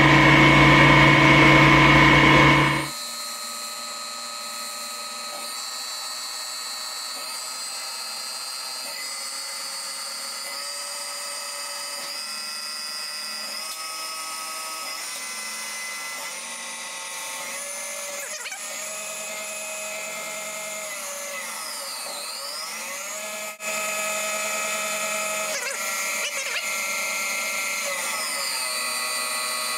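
CNC lathe running its part program behind the closed machine door: a machine whine of many steady tones that step and glide up and down in pitch as the machine changes speed. A louder hum in the opening seconds cuts off suddenly about three seconds in.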